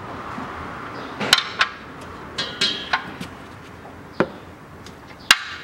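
Metal spanner clinking against the oil drain plug as the plug is snugged up on the oil pan: a series of irregular sharp metallic clicks and knocks, a few ringing briefly.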